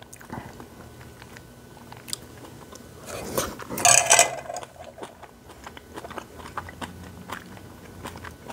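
Close-miked chewing and mouth sounds of a person eating jjajangmyeon (instant black-bean-sauce noodles), with many small clicks and a louder noisy burst about three to four seconds in.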